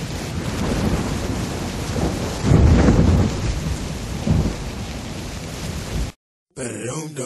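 Thunderstorm: steady rain with a rumble of thunder about two and a half seconds in and a smaller one a little later, cutting off abruptly near the end.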